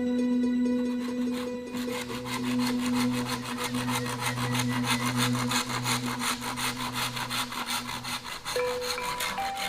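Rapid, even rasping or scraping strokes, about six a second, over soft background music.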